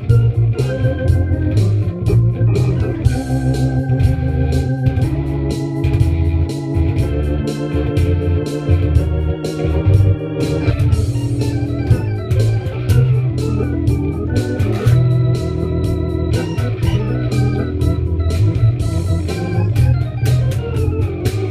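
Instrumental jazz improvisation: an organ plays held, wavering chords and melody lines over a walking bass, with a guitar and a steady ticking beat underneath.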